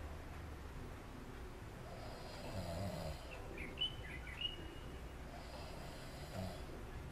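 A sleeping person snoring, two slow snores about four seconds apart. A few short high chirps sound between them, near the middle.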